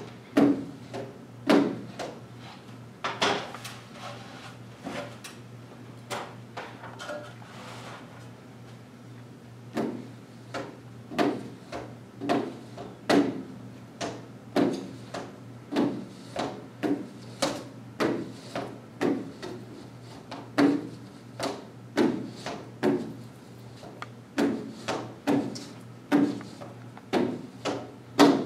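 A 6-inch razor-blade scraper stroked over wet window glass, scraping the pane clean in short repeated passes, about one to two a second, with a sparser stretch in the middle.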